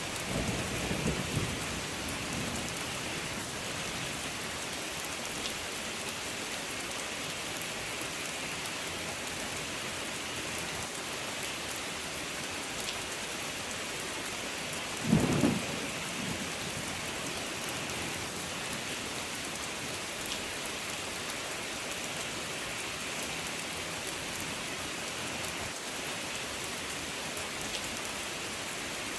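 Steady rain falling, with a low rumble of thunder at the start and a short, sharp clap of thunder about halfway through, the loudest moment.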